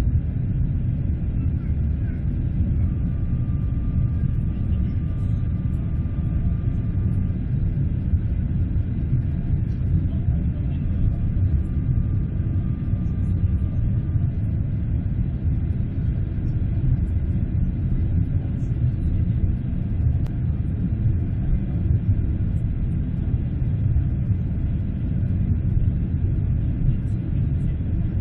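Boeing 747's jet engines heard from a distance during takeoff: a steady low rumble at an even level, with a faint high whine that comes and goes twice.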